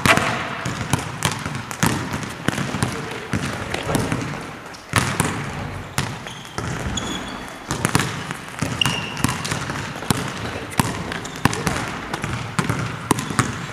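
Basketballs bouncing on a gym floor, many irregular thuds from several balls being dribbled at once, with a few short high squeaks.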